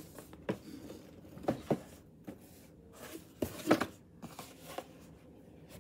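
Cardboard packaging of a battery charger being handled: scattered light knocks and rustles as the box is turned over and moved about.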